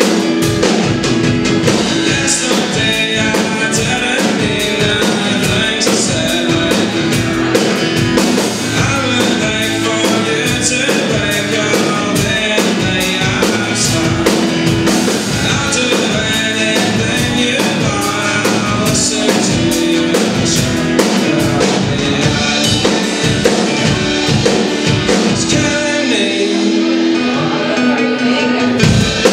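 Live acoustic guitar and drum kit playing a rock song, with a male voice singing. The lowest notes drop out briefly near the end.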